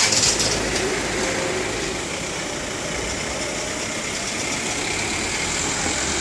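A van's engine idling, then pulling away over the level crossing near the end, with a brief loud rush of noise at the very start.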